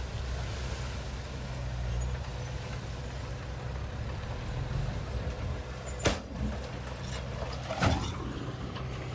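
Heavy diesel engine of earthmoving equipment running steadily at a low hum. Two short sharp knocks stand out about six and eight seconds in.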